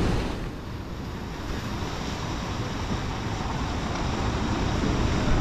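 Sea surf washing against the rocks of a breakwater, with wind on the microphone; the wash drops away at the start and slowly builds again.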